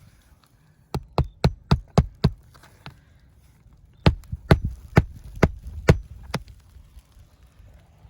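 Hammer driving a roofing nail through an asphalt shingle into the roof deck: a run of about six quick strikes, a pause, then about seven more.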